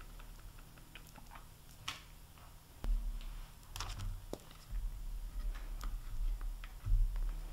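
Silicone spatula stirring melted chocolate candy coating in a glass bowl: scattered small clicks and taps, a few louder, with low bumps about three seconds in and near the end.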